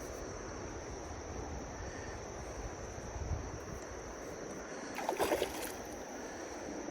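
Steady outdoor noise of flowing river water, with wind rumbling on the microphone and a steady high hiss. About five seconds in there is a brief cluster of sharp rattling sounds.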